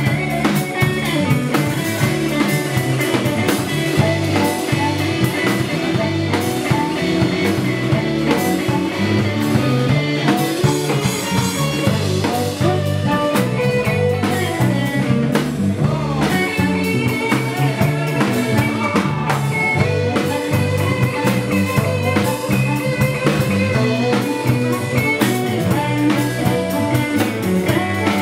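Live blues band playing, with electric guitar and drum kit, and a harmonica played cupped against a handheld microphone.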